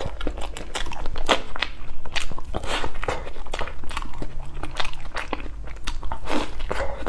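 Close-miked mouth sounds of a person eating a soft-serve ice cream cone: irregular wet bites and chews into the ice cream.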